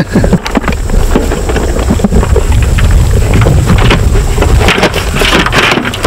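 Wind buffeting the microphone in a steady low rumble, with scattered close rustles and clicks and a brief hiss about five seconds in.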